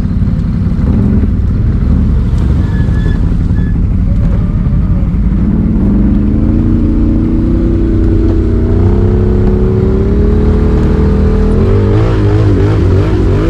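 Can-Am Renegade XMR 1000R's V-twin engine running through an SLG Sniper Series slip-on exhaust while riding. It is steady at first, revs climb smoothly from about halfway, and the throttle rises and falls several times near the end.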